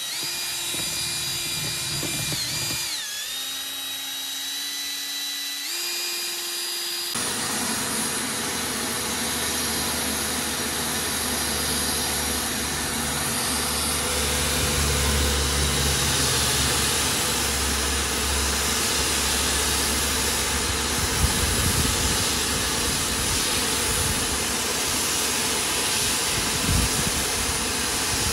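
Cordless drill with a paddle mixer stirring paint in a bucket, its whine stepping up and down in pitch as the speed changes. About seven seconds in it gives way abruptly to the steady rushing hiss of a Bosch electric paint sprayer's turbine blowing paint from the spray gun.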